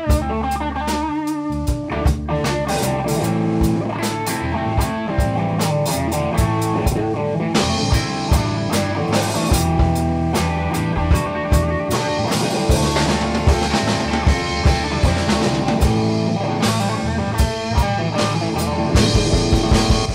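Background rock music with guitar and drums and a steady beat.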